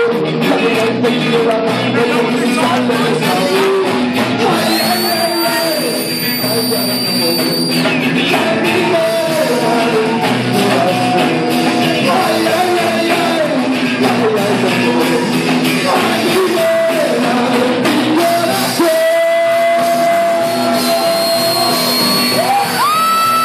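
Live rock band playing: a male singer's vocals over drum kit and electric guitar.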